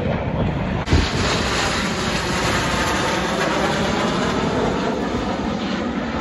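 Military jet aircraft engine noise, a steady broad rush, with a short knock about a second in after which the sound turns brighter.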